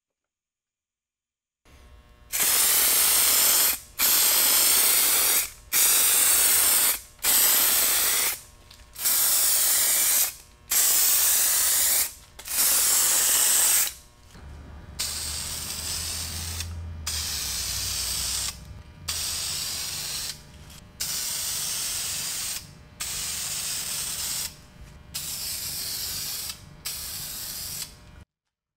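Aerosol spray-paint can hissing in about fifteen separate bursts of a second or so each, as paint is sprayed onto a bare steel axe head. The bursts start about two seconds in, and the second half of them are quieter.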